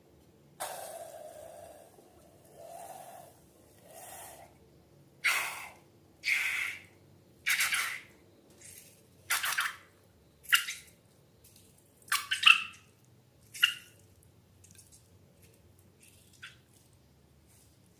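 Wet slime being handled: a series of about a dozen short wet noises at irregular intervals, thinning out in the last few seconds.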